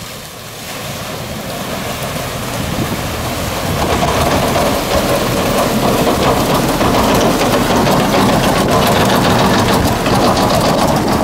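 Toyota Hilux pickup wading through a river ford: water splashing and rushing around its wheels and body, with the engine running underneath. The sound grows louder over the first few seconds as the truck comes close, then holds steady.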